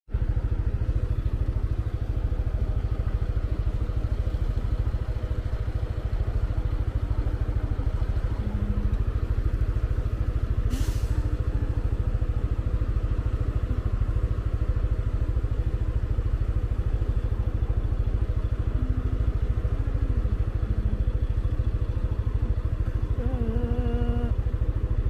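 Yamaha scooter engine idling steadily with a constant low rumble. A brief high hiss comes about eleven seconds in.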